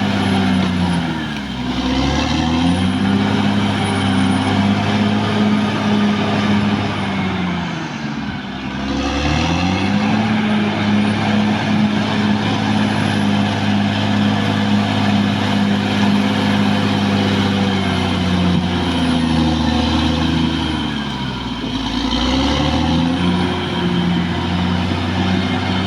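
Caterpillar D6R XL bulldozer's diesel engine running loud and steady, its pitch dropping sharply and climbing back three times: about a second and a half in, around nine seconds in, and near twenty-one seconds in.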